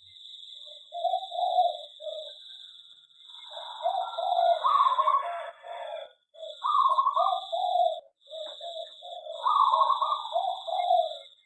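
Several zebra doves (perkutut) cooing, their short coo notes repeating and overlapping, most densely in the middle and again near the end. A steady high-pitched tone runs underneath.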